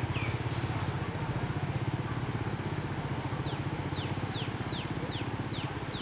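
A small engine running steadily at low speed, with a fast even beat. From about halfway through, a bird repeats a short falling chirp about twice a second.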